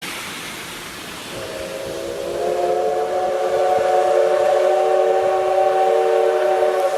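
C11 steam locomotive's steam whistle blowing one long, steady blast that starts about a second in, over a background hiss of steam.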